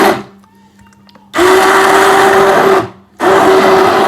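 Electric hand blender run in short pulses, blending soaked tapioca pearls (sabudana). A burst ends just after the start, then two more of about a second and a half each follow, each with a steady motor whine.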